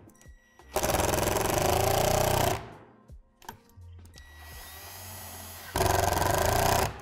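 Cordless impact driver driving screws into the shed door's handle hardware, running twice with a rapid hammering: about two seconds near the start, then a shorter run near the end.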